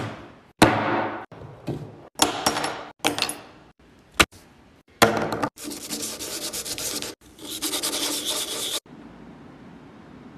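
Plastic AirPods case rubbed back and forth on 220-grit sandpaper, scuffing the glossy case before painting. The scraping comes in several short bursts broken by abrupt cuts, then a longer stretch of steady sanding that stops a little before the end.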